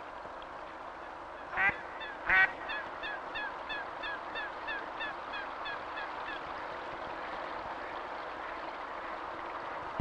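Waterbirds calling: two loud calls about one and a half and two and a half seconds in, followed by a quicker run of short, slightly falling calls, about three or four a second, that fade out after a few seconds, over a steady background noise.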